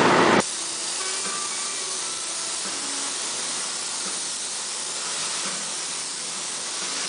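Gravity-feed paint spray gun hissing steadily as it sprays paint onto a metal license plate. A louder noise cuts off abruptly about half a second in.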